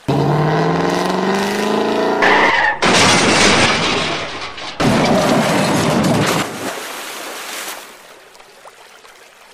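Dubbed car sound effects: an engine revving up in rising glides, a short tire squeal about two seconds in, then two stretches of loud skidding noise that fade out near the end.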